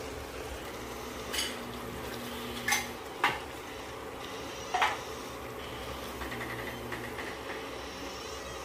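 Glass pan lid and spatula knocking and clinking against a frying pan while a coconut-milk stew is stirred: four sharp knocks between about one and five seconds in, over a steady background.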